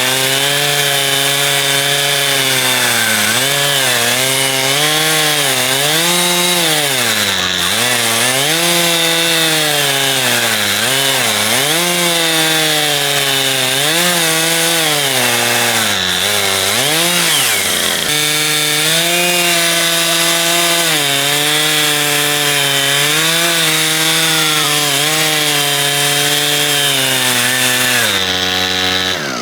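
Two-stroke chainsaw on an Alaskan chainsaw mill ripping a log lengthwise under load. The engine pitch repeatedly sags and recovers as the bar bites into the wood, dips sharply once past the middle, and settles lower near the end.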